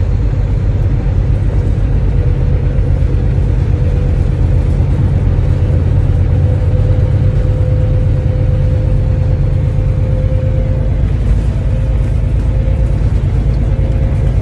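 Steady low drone of a semi-truck cruising at highway speed, heard inside the cab: engine and road rumble with a thin steady whine above it.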